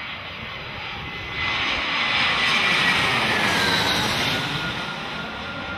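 Airplane passing overhead: a rushing engine noise that swells about a second in, peaks mid-way and eases off, with a faint whine falling slowly in pitch.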